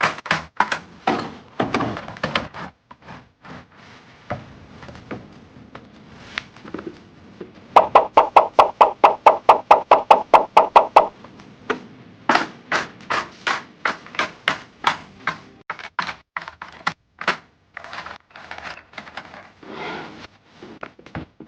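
Irregular knocks, clicks and taps from food containers and packages being handled and set down. About eight seconds in, a fast, even run of about five sharp knocks a second lasts roughly three seconds.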